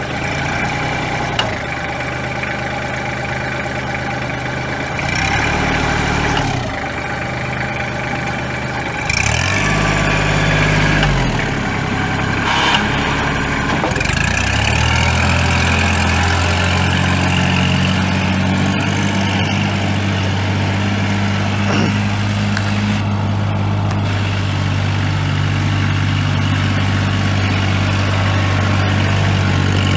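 Kubota L3200D tractor's D1503 three-cylinder diesel engine running, its speed changing several times in the first half, then holding steady at higher revs from about halfway.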